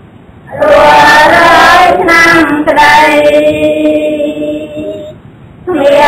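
Voices singing in long held notes that bend slightly in pitch, with short breaks about half a second in and again near the end.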